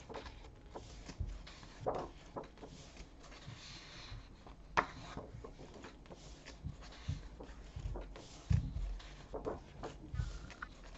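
Thick paper pages of a colouring book being turned by hand, one after another: short swishing rustles of paper with occasional soft low thumps as the book and pages are handled.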